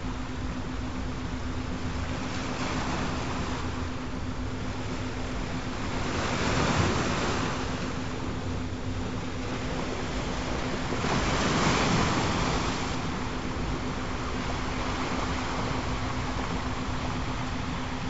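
Recorded ocean surf: a steady wash of waves that swells louder twice, about six and about eleven seconds in, with a steady low tone held beneath it.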